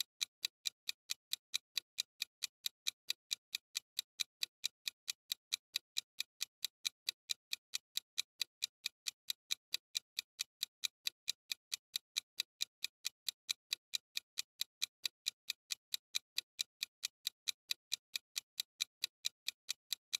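Clock-tick sound effect for a countdown timer: sharp, even ticks at about three a second, steady throughout.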